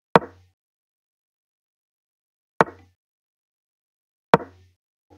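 Online chess site's move sound effect: a short wooden click, three times about two seconds apart as pieces are moved in a blitz game, with a faint click near the end.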